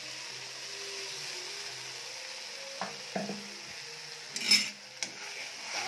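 Ground onion, chilli, garlic and ginger masala frying in oil in a kadhai with a steady sizzle, with a few sharp knocks of a spoon against the pan. About four and a half seconds in comes a brief, louder metallic clatter.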